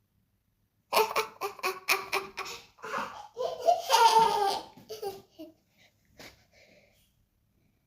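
A baby laughing: a run of quick, breathy laughs starting about a second in, building to a long high peak, then trailing off into a few short catches of breath.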